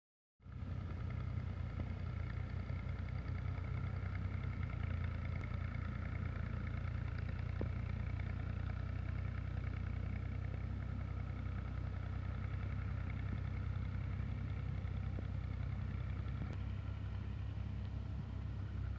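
A motor engine running steadily at one speed, a low drone that does not rise or fall.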